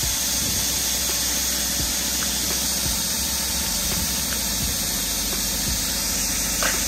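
Compressed air hissing steadily through an air-line tyre inflator into a tyre whose bead is not yet seated on the rim.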